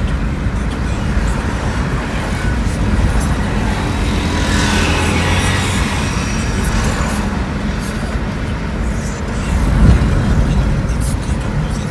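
Steady engine and road rumble inside a moving car's cabin, with the noise of busy traffic outside. About halfway through, the sound swells louder and brighter as an oncoming truck passes, and there is a brief low thump near the end.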